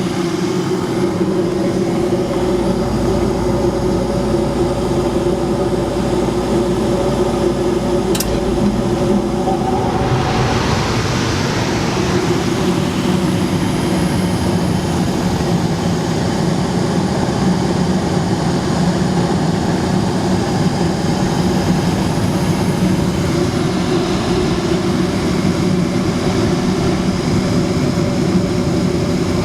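Forced-air furnace running with a steady mechanical hum. A faint click comes about eight seconds in, and from about ten seconds in a rushing air sound joins the hum and holds steady.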